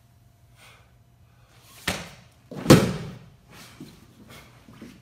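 A sharp slap and then a heavy thud about two-thirds of a second later, the thud the loudest: a martial artist dropping his body onto the training-floor mat during a taekwondo form. Softer scuffs and knocks of movement on the mat follow.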